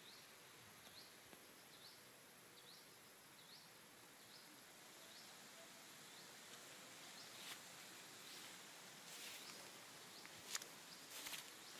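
Quiet rural ambience with a faint, short rising chirp repeated a little more than once a second. In the last few seconds, footsteps rustle through grass and undergrowth.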